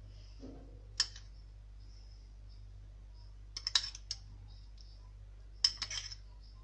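Metal spoon clicking against a small ceramic bowl while spooning out salad dressing: one click about a second in, then two quick flurries of clicks, around the middle and near the end, over a faint steady low hum.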